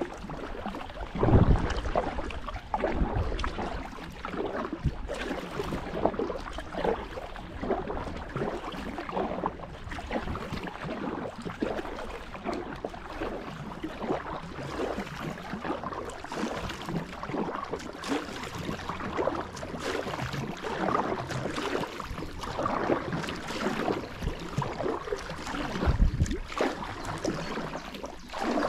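Canoe paddling on a slow stream: irregular splashing and trickling of water from the paddle strokes. There are two louder low thumps, about a second in and near the end.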